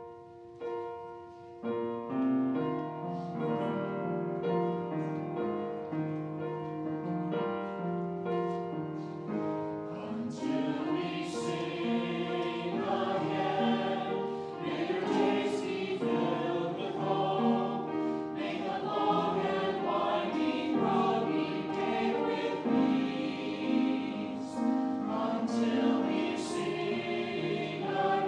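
Choir singing sacred music with accompaniment; the sound opens with sustained instrumental notes and grows fuller as the voices come in strongly about ten seconds in.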